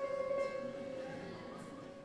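Piano score: a single held note slowly dying away.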